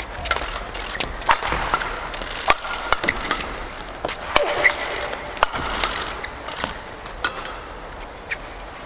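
Badminton rackets striking the shuttlecock in a fast rally, sharp clicks coming about every second, with the short squeaks of court shoes between them over a murmuring arena crowd.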